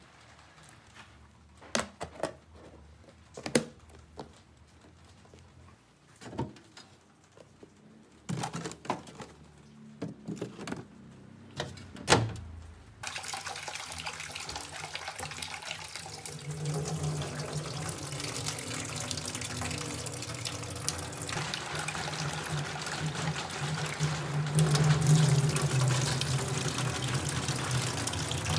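A metal utensil knocking and scraping in a plastic tub while stirring chicken in thick batter: a dozen or so sharp clicks. Then, about halfway, a kitchen tap starts running steadily into a stainless-steel sink as rice is washed by hand in a bowl. It grows louder near the end as the cloudy rinse water is poured off.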